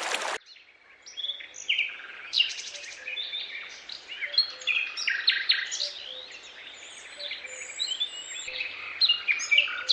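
Several small birds chirping and calling at once: a busy run of short, overlapping chirps and quick sliding notes.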